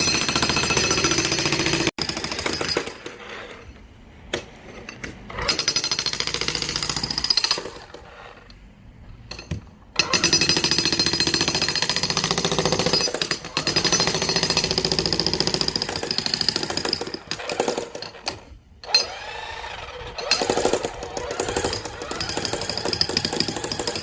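Hilti TE 3000-AVR electric jackhammer breaking concrete. It hammers in several runs with short pauses between them, the longest lasting about seven seconds from around the middle.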